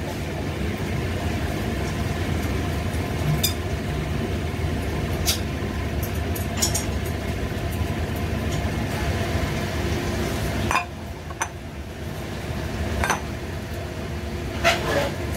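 Chopsticks clinking against a stainless frying pan now and then while beef is stirred, a handful of sharp clinks spread out, over a steady mechanical drone that dips for a few seconds about two-thirds through.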